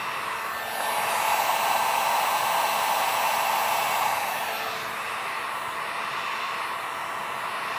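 Drillmaster handheld heat gun blowing hot air onto a plexiglass sheet, a steady fan-driven rush. It grows louder from about a second in until about four seconds in, as the nozzle swings toward the microphone, then settles back.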